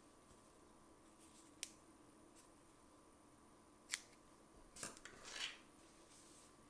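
Small scissors snipping cotton yarn tails: two sharp snips about two seconds apart, then a brief rustle as the crocheted fabric is handled.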